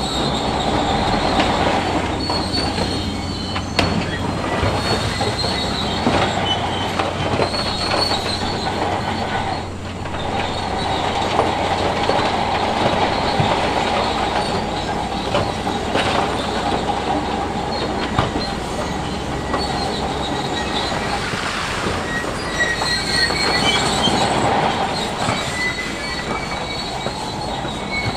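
Shantui crawler bulldozer at work: diesel engine running under steady load, with its steel tracks squealing and clanking and scattered knocks of rock.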